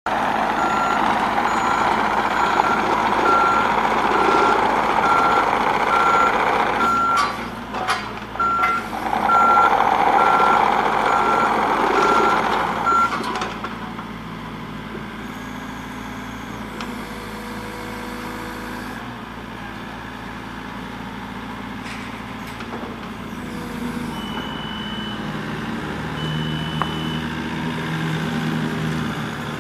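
Volvo ECR88 compact excavator running as it tracks, its travel alarm giving a steady run of short, even beeps that stops about halfway through. The diesel engine keeps running on its own afterwards and grows louder near the end.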